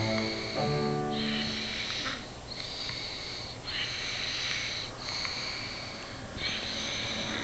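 A baby and her father snoring: breathy snores come about once a second, with a few notes of music in the first second.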